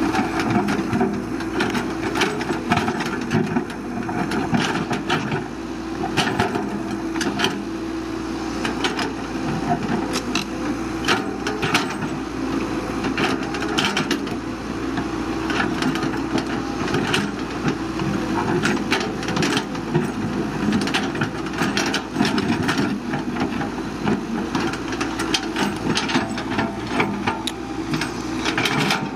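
Caterpillar 312BL excavator's diesel engine running steadily under working load, with frequent sharp cracks and knocks as the machine breaks and shifts brush, soil and rock.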